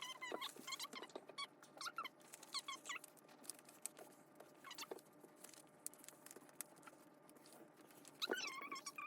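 Paper being folded and creased by hand, with faint rustles and crinkles. Groups of high squeaky chirps from an unseen source come over it in the first few seconds, once around the middle and again near the end.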